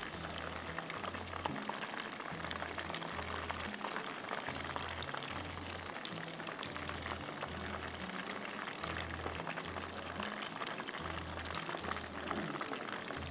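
Battered chicken pieces deep-frying in hot oil in a karahi: a steady sizzle and crackle, over a soft background music bass line.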